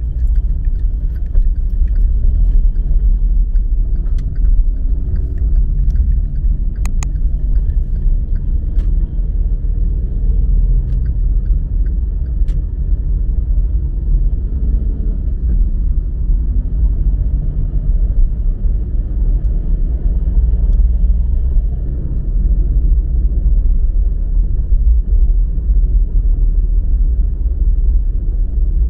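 Car driving along a city street: steady low rumble of engine and tyre noise, with a few light clicks in the first half.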